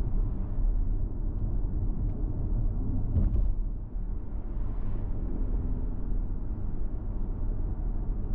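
Car driving on an asphalt street: a steady low rumble of tyres and engine, with one short knock a little over three seconds in.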